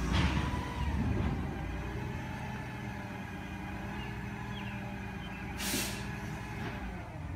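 Recycling collection truck's diesel engine running down the street, with a short hiss of its air brakes about six seconds in.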